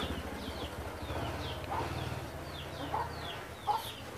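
Chickens clucking, with a string of short, high, falling chirps a few times a second and a low steady hum underneath.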